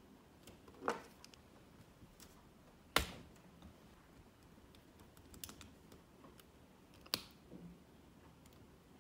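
Scattered sharp clicks and small ticks of a plastic vape casing being handled and pried open with the tip of a small precision screwdriver, with three louder clicks spread through.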